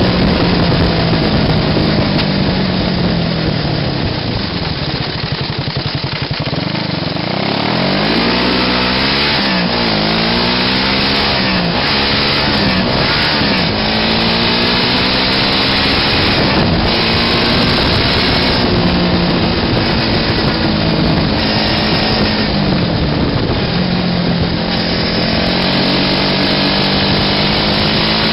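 Buggy engine running under way, its pitch falling as it slows in the first quarter, then rising in several successive sweeps as it accelerates through the gears, and settling to a steady cruise with a couple of brief dips later on.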